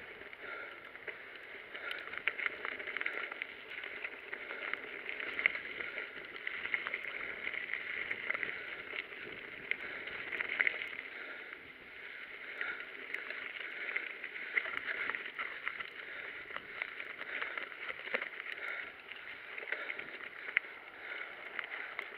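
Mountain bike rolling over a narrow gravel-and-dirt singletrack: a steady crunching hiss of tyres on loose stones, with frequent small knocks and rattles from the bike over the bumps.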